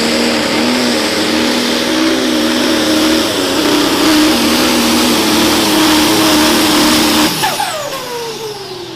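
Modified pulling tractor's engine running flat out under load with a steady, wavering drone. About seven seconds in it cuts off suddenly and the pitch falls away as the engine winds down: it has let go and caught fire during the pull.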